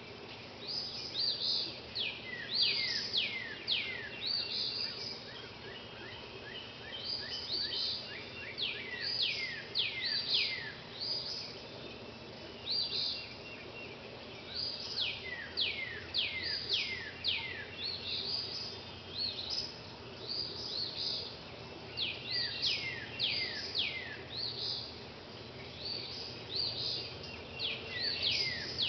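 Songbirds singing at sunrise: runs of quick, high whistled notes that sweep downward, repeating throughout, over the steady wash of a fountain.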